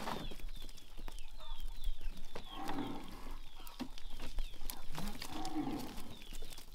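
Small live fish wriggling and slapping in a mesh net as hands sort through them, giving scattered clicks and rustles. A quick run of high, falling chirps repeats throughout, and two low, drawn-out lowing calls, like cattle, come about two and a half and five seconds in; the second rises in pitch.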